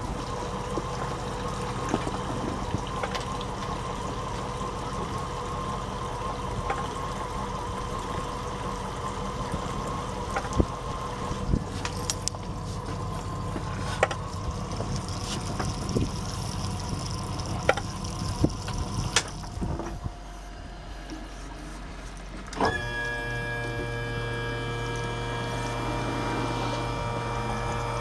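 Steady low mechanical hum with water sloshing and scattered light clicks. About 23 seconds in, music with a held chord begins.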